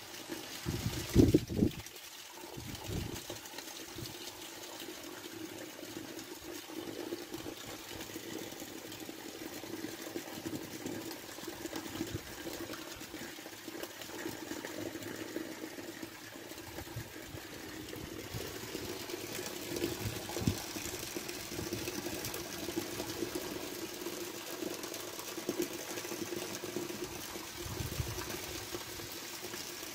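Steady rain falling, with water running over muddy ground and a low steady hum underneath. A couple of low thumps come about a second in.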